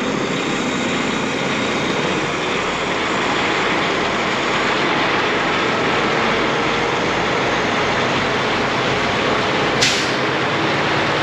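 Steady road and engine noise of a semi truck hauling grain, with a brief hiss near the end.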